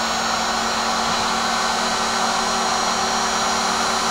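Electric heat gun running steadily, its fan blowing hot air with a steady hum and a faint high whine, shrinking heat-shrink tubing over a small radio receiver board.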